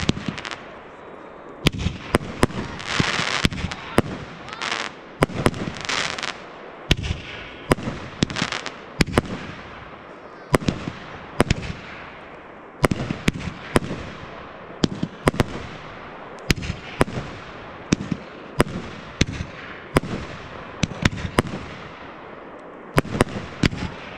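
Fireworks display: aerial shells bursting overhead in quick succession, dozens of sharp bangs roughly a second apart, with a couple of stretches of hissing crackle in the first quarter.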